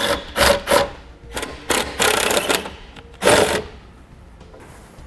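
Cordless driver with a T20 Torx bit running in several short bursts, the longest a little under a second at about two seconds in, backing out taillight screws. It stops about three and a half seconds in.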